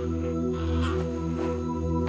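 Background music of held, sustained chords with a few soft higher accents.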